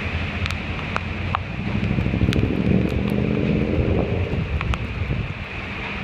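Thunderstorm wind gusting hard through the trees and buffeting the microphone. A vehicle engine runs through the middle, rising slightly in pitch, and there are a few sharp ticks.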